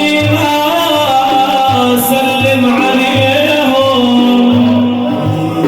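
A devotional Arabic praise song for the Prophet (madih) sung with a melismatic, wavering melody over a steady beat of hand drums.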